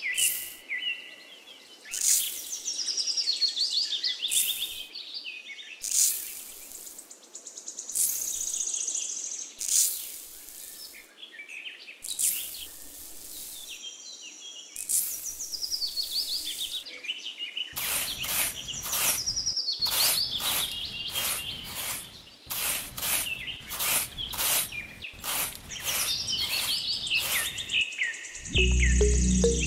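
Small birds chirping and twittering throughout, over repeated short scraping and patting strokes of sand being scooped and smoothed with a small trowel, the strokes coming quickly in the last third. Music comes in near the end.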